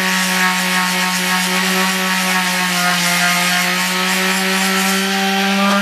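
Corded handheld grinder with a sanding pad running at steady speed against the hub of a cast motorcycle wheel, a steady motor whine with a hiss of abrasion as it grinds the surface down.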